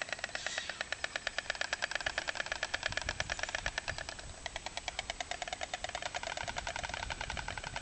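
Stork clattering its bill: a rapid, even rattle of about a dozen wooden-sounding clacks a second, dipping briefly about four seconds in.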